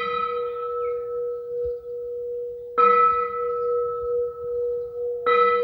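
A temple bell struck twice, about two and a half seconds apart, each strike ringing on with a bright high tone that slowly fades, over a steady lower hum that rings throughout.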